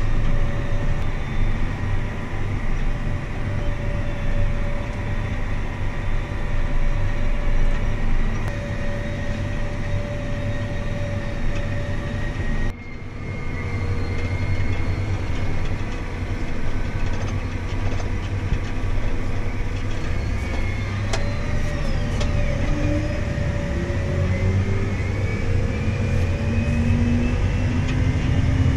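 Farm tractor engine running steadily while driving on the road. It briefly drops away about 13 seconds in, and a rising whine climbs in pitch near the end.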